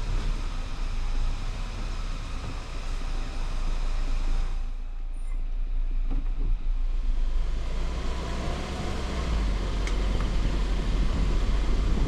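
Wind buffeting the microphone, an uneven low rumble over a steady outdoor hiss.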